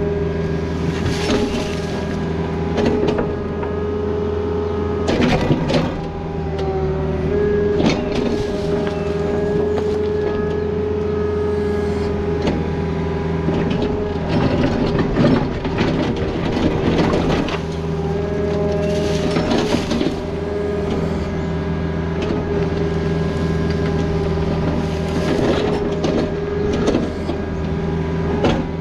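Takeuchi TB260 mini excavator digging a trench in rocky soil: the diesel engine runs steadily under hydraulic load with a constant whine, while the bucket scrapes and knocks against rock and dirt at irregular intervals.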